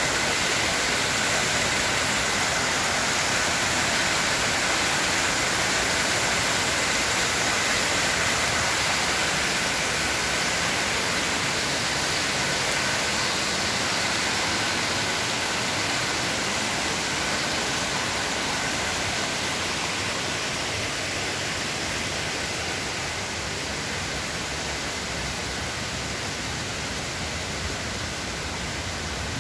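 Steady rushing of a waterfall, with white water pouring over rocky cascades. It slowly gets a little quieter over the second half.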